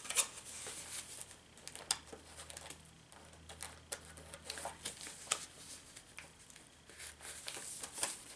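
Paper and card pages of a handmade junk journal being handled and turned: soft rustles and light taps at irregular moments, over a faint low hum.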